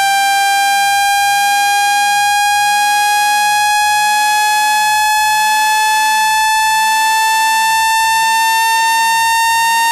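Synthetic speaker-cleaning tone: a loud, steady, buzzy electronic tone rising slowly in pitch, played to shake dust out of a phone speaker.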